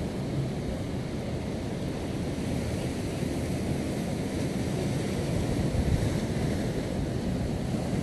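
Steady noise of wind on the microphone mixed with sea surf, heaviest in the low end.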